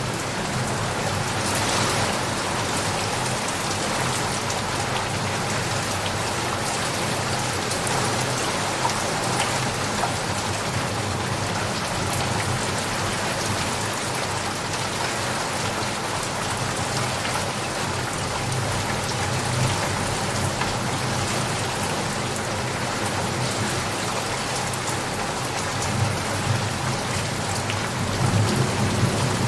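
Steady rain falling on surfaces, an even hiss of drops. A low rumble of thunder swells in near the end.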